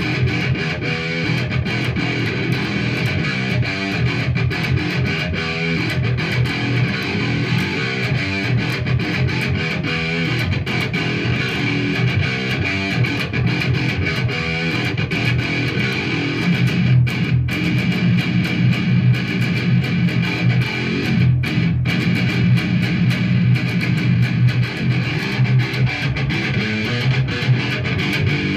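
Electric guitar played solo, a continuous run of rapid picked notes.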